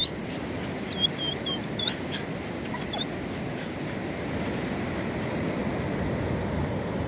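Ocean surf washing steadily on the beach. In the first three seconds there are about half a dozen short, high-pitched squeaks or chirps, from a bird or the dog.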